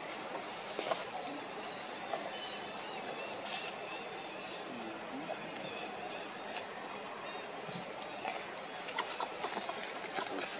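Steady, high-pitched chorus of insects, two high tones held without a break, with a few faint clicks.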